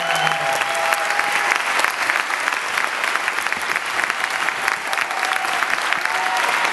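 Theatre audience applauding: a dense, steady clatter of many hands clapping.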